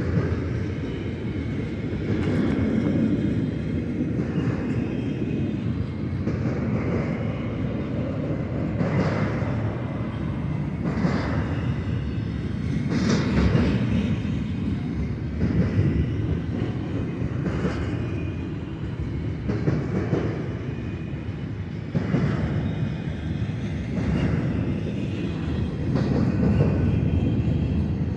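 Double-stack intermodal freight train rolling past: a steady rumble from the container well cars, with a wheel clack about every two seconds.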